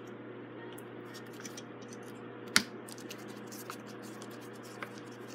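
Light scraping and small clicks of a screwdriver working the screws in the cast-iron ball joint of a vintage Emerson fan, with one sharper click about two and a half seconds in, over a steady low hum.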